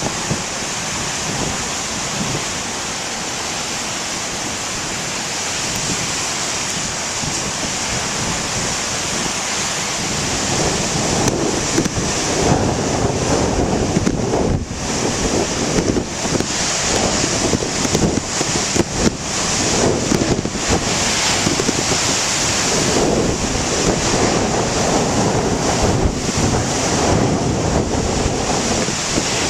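Large ocean waves crashing and churning, with wind buffeting the microphone. A steady surf hiss for the first ten seconds or so, then louder and gustier for the rest.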